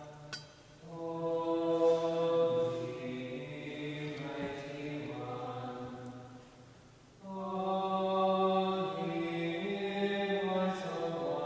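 Voices singing a slow, chant-like hymn in long held notes, with short pauses between phrases about a second in and again around seven seconds.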